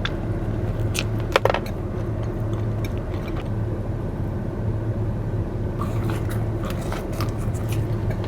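Biting into and chewing a soft filled Krispy Kreme donut, a few small mouth clicks, over a steady low hum.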